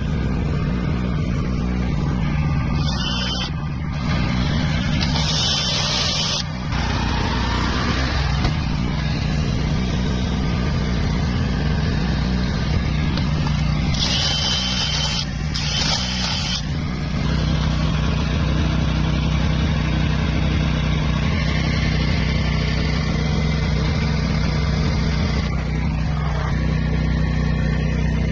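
An engine running steadily at a constant speed, with a few short bursts of hiss.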